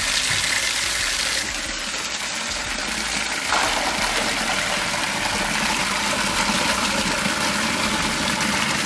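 A stream of water running hard into a large stainless-steel pot. About three and a half seconds in, a mass of peeled garlic cloves is tipped in and splashes into the water as it fills.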